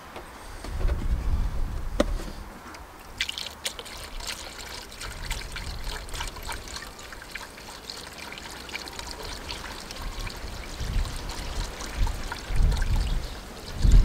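Coolant pouring from a plastic jug into a car radiator's filler neck, a steady trickling and gurgling stream, with a few low rumbles now and then.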